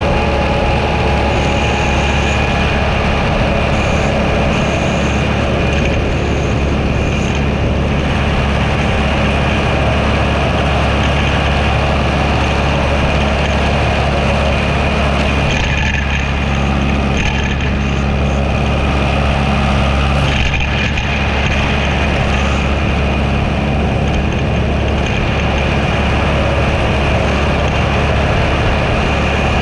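Tractor engine with a roadside mower running, a loud steady drone that hardly changes.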